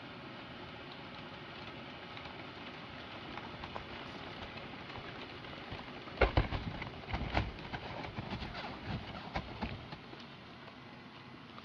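Steady rushing of the blower inflating a dome air-form. About six seconds in, a run of irregular knocks and thumps lasts some four seconds.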